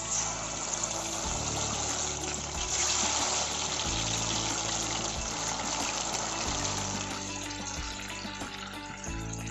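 Marinated chicken pieces dropped into hot oil in a pan, the oil sizzling, starting suddenly as the first piece goes in. Background music plays underneath.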